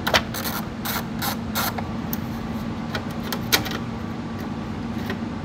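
Irregular metallic clicks and clinks from a small ratchet and socket backing off the 10 mm nuts that hold a Jeep Renegade's third brake light, followed by a few sharper knocks as the plastic lamp assembly is handled. A steady background hum runs underneath.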